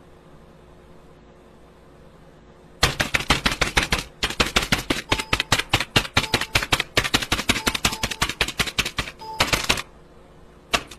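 Rapid typing clicks, keys struck several times a second for about seven seconds, starting about three seconds in, over a faint steady hum.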